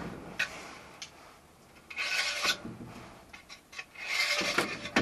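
Knife blade scraping gravel and dirt out of a metal gutter channel: two spells of rasping scraping, about two seconds in and again near the end, with a few small clicks between.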